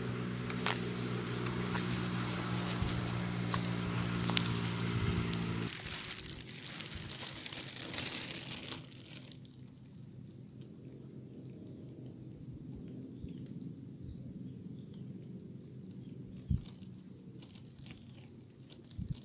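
Footsteps crunching over rough, dry coral rock, with a steady low motor drone underneath for the first several seconds. After that the drone and the crunching stop and the sound drops to quiet water-side ambience, broken by one soft knock.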